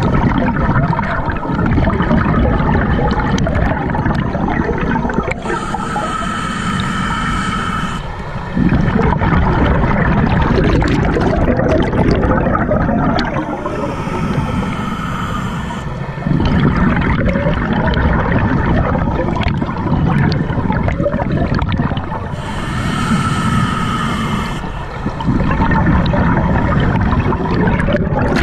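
Scuba regulator breathing heard through an underwater camera housing: slow breaths, each a hissing inhale through the demand valve with a faint whistle, then a longer, louder bubbling rumble of exhaled air. About three full breaths pass.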